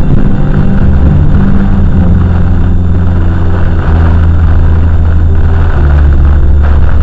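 Loud, steady low rumble of storm wind buffeting a car that is shaking in the gusts, heard from inside.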